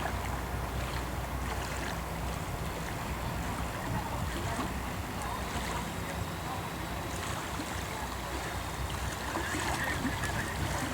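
Boat engine running with a steady low drone, under wind and water noise.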